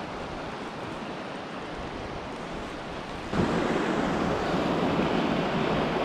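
River water rushing over rapids, with wind noise on the microphone; a little past halfway the rush becomes abruptly louder and fuller.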